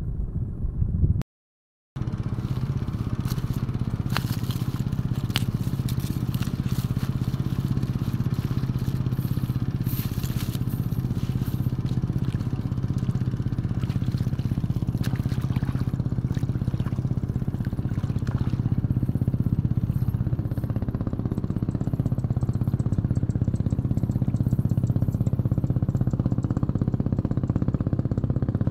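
A steady low engine drone, broken off briefly about a second in, with scattered light clicks over it.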